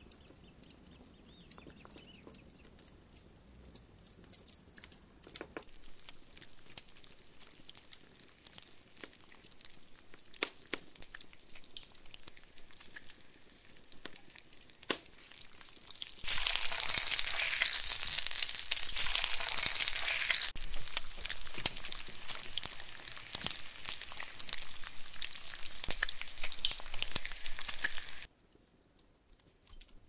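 Chopped tomatoes and green peppers frying in a pan over a campfire. A quiet sizzle with scattered ticks becomes, about halfway through, a much louder steady sizzle. It cuts off abruptly shortly before the end.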